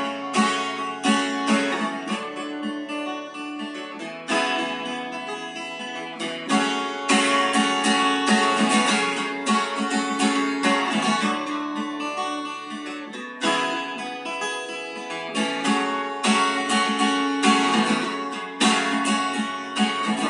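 Acoustic guitar strumming chords without singing, an instrumental passage between sung verses, with the chords changing every few seconds.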